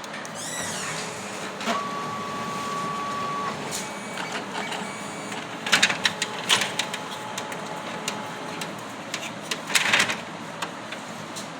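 HP 3035/3005 laser printer mechanism running, with repeated clicks and short rattling bursts, the loudest about six and ten seconds in, and a brief steady whine about two seconds in.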